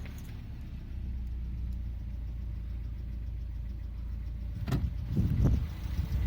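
Lada VAZ-21127 1.6-litre 16-valve four-cylinder engine idling steadily; the owner is trying to identify a knock in it. About three-quarters of the way in there is a sharp click, followed by a louder, uneven rumble.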